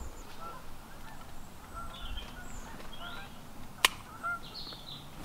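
Waterfowl calling with short, scattered honks, and one sharp click about four seconds in.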